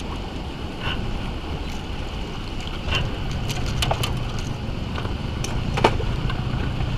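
Steady rush of turbulent spillway water with wind on the microphone, broken by a few sharp metallic clicks of fishing pliers and a lip gripper as a hook is worked out of a small fish.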